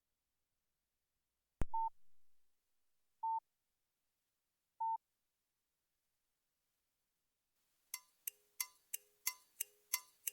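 Nokia 2730 classic ringtones: a click, then three short beeps at one pitch about a second and a half apart. After a pause of about three seconds, a tune of quick ticking, plucked-sounding notes begins, about three a second.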